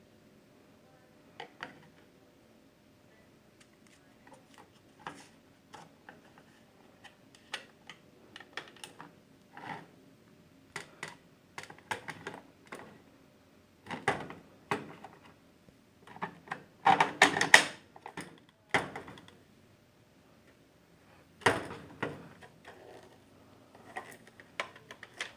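Irregular plastic clicks and knocks from a Nerf blaster being worked and tested, with a dense rattling run of clicks a little past the middle and a sharp louder knock later on.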